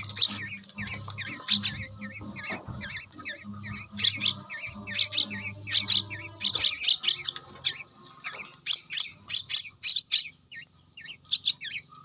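Hand-fed fledgling birds, a young myna and a young black-naped oriole, begging: bursts of rapid, harsh, high calls with short chirps repeating between them. A low hum runs under the calls until about seven seconds in.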